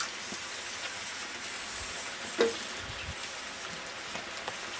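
Lit firework fuse sizzling with a steady hiss, with one brief louder sound about halfway through.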